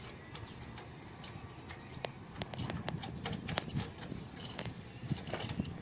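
Irregular light clicks and knocks of hand tools and metal parts being handled during boom barrier fitting work.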